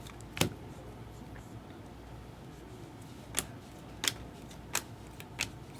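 Baseball trading cards being handled and flipped one by one: about five short sharp clicks of card on card, the first the loudest.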